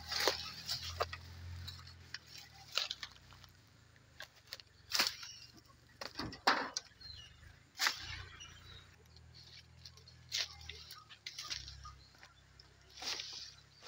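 Irregular rustles and light knocks with a few sharper clicks, the strongest about halfway through, over an on-and-off low hum.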